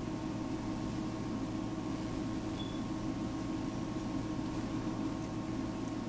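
Steady low room hum with a faint hiss and no distinct events; the fine wire-wrapping by hand makes no clearly audible sound.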